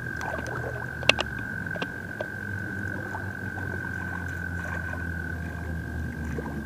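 An American toad trilling: one long, steady, high-pitched trill that holds without a break. A few sharp clicks come about a second in, and a low steady rumble runs underneath.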